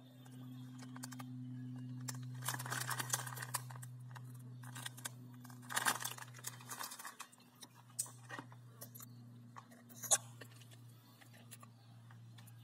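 A clear plastic parts bag crinkling and rustling as plastic kit sprues are handled, in two bursts, with a few light plastic clicks later on. A steady low hum runs underneath.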